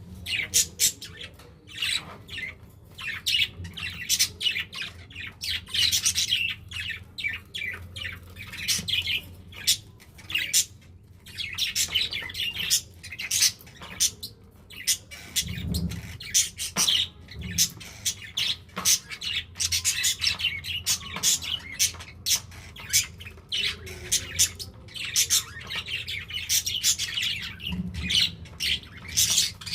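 Budgerigars chattering: a busy run of short, high chirps and squawks with only brief pauses.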